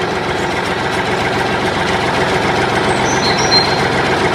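Tractor engine running steadily with a fine low pulsing, and a few short bird chirps about three seconds in.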